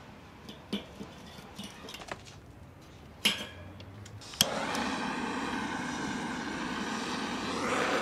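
Chunks of mesquite lump charcoal clinking and knocking as they are set in the grill, in scattered clicks. About four seconds in, a sharp click is followed by a sudden steady engine drone whose tones rise slightly near the end.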